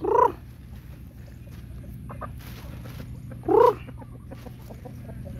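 Chickens clucking and squawking. Two loud short calls rise in pitch, one at the very start and one about three and a half seconds in, with softer clucks between them, over a steady low hum.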